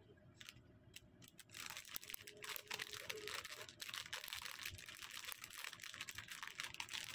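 Small clear plastic packaging bag crinkling and crackling as it is handled in the fingers and opened, starting about a second and a half in and running as a rapid, dense crackle.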